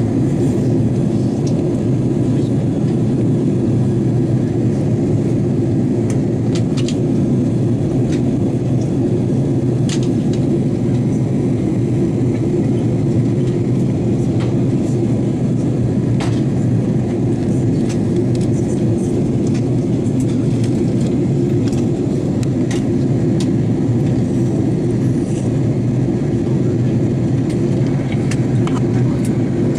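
Steady cabin noise aboard an Airbus A330-200 descending toward landing: a constant low rumble of engines and airflow, with a few faint ticks.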